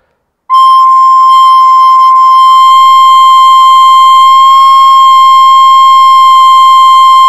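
Recorder head joint blown on its own: one loud, steady high note with a clear series of overtones, starting about half a second in and held. The breath pressure is being worked up and down to find the point where the pipe rings and resonates.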